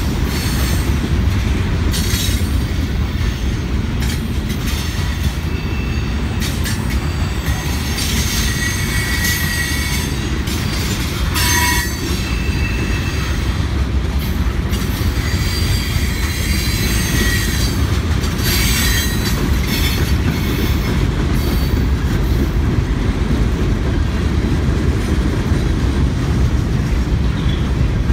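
Freight cars of a Norfolk Southern train (tank cars, covered hoppers and boxcars) rolling past on steel rails: a steady heavy rumble of wheels on track. Thin high-pitched wheel squeals come and go several times through the middle, with a few sharp clicks.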